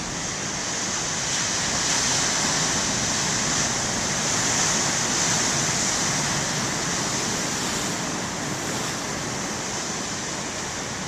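Big ocean waves breaking on the shore: a steady rush of surf that builds over the first couple of seconds and slowly eases toward the end.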